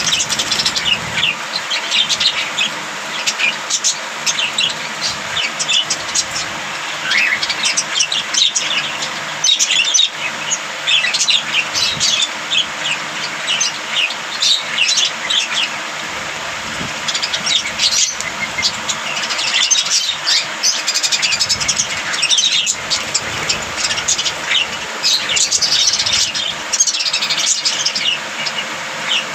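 A group of budgerigars chirping and warbling continuously, many short overlapping high chirps with no pause.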